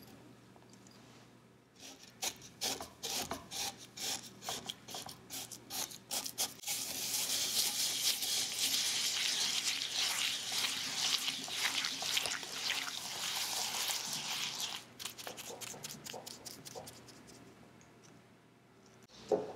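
A whisk working granulated and brown sugar into melted butter in a glass bowl, with gritty scraping. It starts as separate strokes, turns into several seconds of fast continuous whisking, and eases off near the end.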